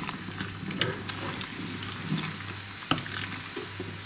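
Wooden stirring stick knocking and scraping against a large aluminium pot of diced courgette in water, in scattered clicks, the sharpest about three seconds in. A steady low hum runs underneath.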